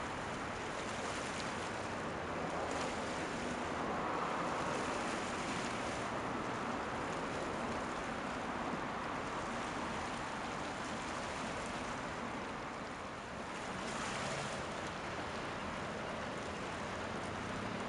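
Steady rushing noise of wind and water, with a few brief surges that grow louder for a moment.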